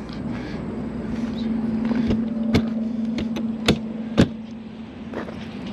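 A vehicle engine idling with a steady low hum that fades near the end, with four sharp clicks or knocks in the middle.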